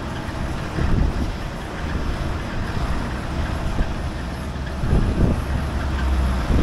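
Petrol pump dispensing fuel into a car's tank: a steady low hum under a rushing noise, the hum growing stronger after about two seconds, with a low bump about a second in and another about five seconds in.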